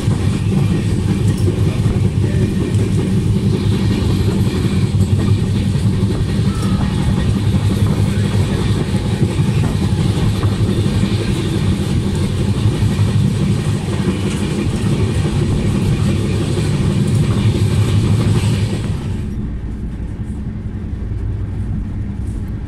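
Passenger train coach running at speed, heard from an open doorway: a loud, steady rumble of wheels on rails with a rushing hiss. About nineteen seconds in it turns quieter and muffled, heard from behind a closed coach window.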